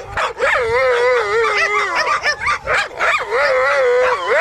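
Dogs howling and yelping: long wavering cries broken by short sharp yelps.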